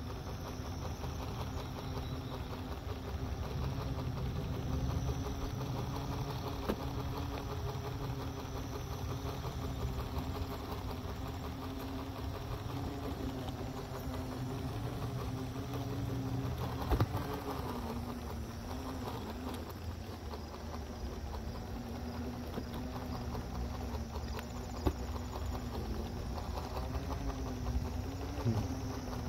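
Halo Rover hoverboard's hub motors whining steadily, the pitch dipping and rising with speed, over the low rumble of its wheels rolling on a concrete path. A single sharp tick a little past the middle.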